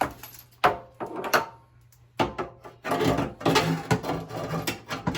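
A few sharp knocks, then continuous clattering and rubbing from about two seconds in: a new kitchen faucet and its parts being handled.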